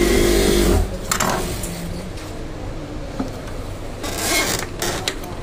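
A metal slide plate being pushed back into a zigzag sewing machine's bed by hand: rubbing and scraping of metal on the painted bed, with handling knocks. The loudest handling is in the first second, and a louder sliding scrape comes about four seconds in.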